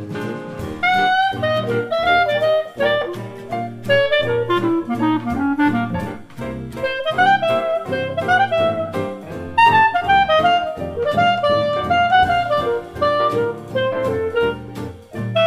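Background jazz music with a saxophone-like melody over a steady bass accompaniment.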